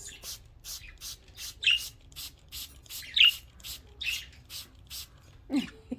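Hand spray bottle misting budgerigars in a run of short squirts, about three a second. A few short budgie chirps come in between.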